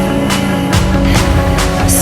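Background music with a steady beat: a rock track with guitar and drums.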